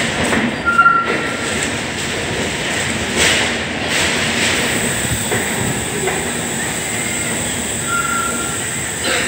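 Express passenger train pulling slowly out of a station, heard from the coach door: steady running noise of the coaches and wheels on the rails. Two short high wheel squeals come about a second in and near the end.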